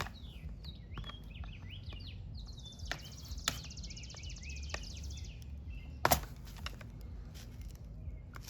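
Small birds chirping in the background, with a rapid high buzzing trill for a couple of seconds near the middle. A few sharp clicks and knocks come through, the loudest about six seconds in.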